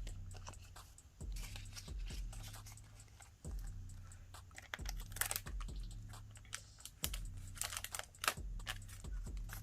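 Small stationery items and their packaging being handled on a table: scattered light clicks and taps, with short crinkling noises.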